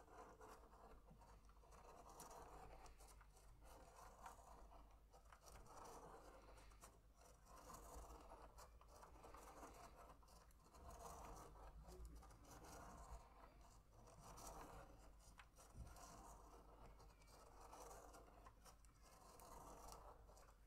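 Faint felt-tip pen scratching on paper as a clear plastic Spirograph gear is rolled around inside a larger toothed ring, the gear teeth ticking lightly against the ring. It swells and fades in repeated strokes every two to three seconds.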